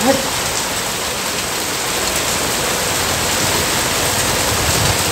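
Heavy rain pouring steadily onto a paved street and a water-covered road, an even hiss of downpour.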